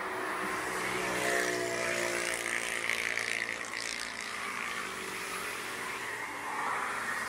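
Road traffic passing on a bridge: a steady rush of tyre noise, with one vehicle's engine hum standing out between about one and three seconds in.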